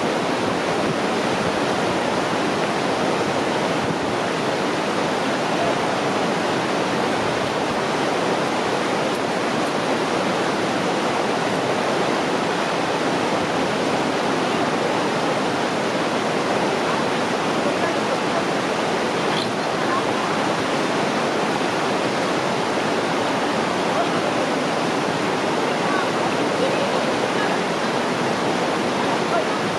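Mountain river water rushing, a loud, steady, unbroken noise.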